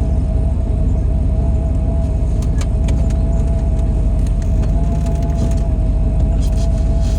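Truck engine running steadily, with a constant whine over the low rumble and a few light ticks about two to three seconds in and again near the end.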